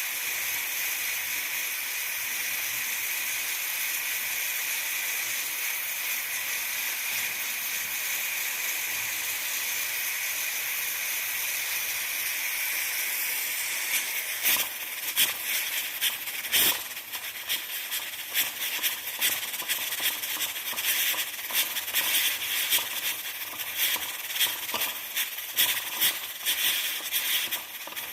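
Pressure cooker venting steam under pressure: a steady hiss with a whistling tone, then, about halfway through, the valve starts letting the steam out in quick, irregular puffs.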